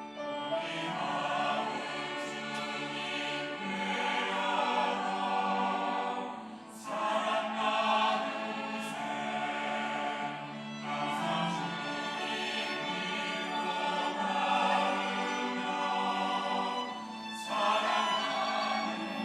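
Church choir singing a hymn anthem in long held phrases, with two short breaks between phrases.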